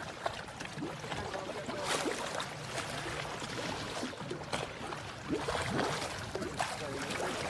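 Water rushing and splashing along the bow of a slow-moving motor boat, a steady wash without any sharp single event.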